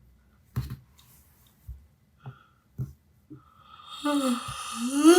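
A woman yawning: a few soft mouth clicks, then from about three seconds in a long in-breath that swells into a drawn-out vocal yawn, its pitch sliding down and back up, loudest near the end.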